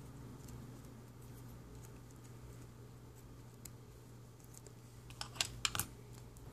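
Small scissors snipping the beading thread: a few quick, sharp clicks about five seconds in, over a faint low hum.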